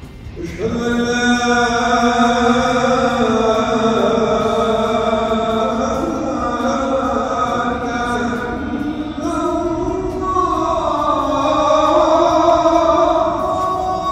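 A solo voice chanting in long, held notes that slide and waver in pitch, starting about a second in.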